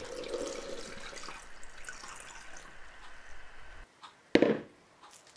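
Brine pouring from a plastic bowl into a large glass jar of pickles: a faint, even trickle that dies away after about four seconds. Just after it, a single short, sharp knock.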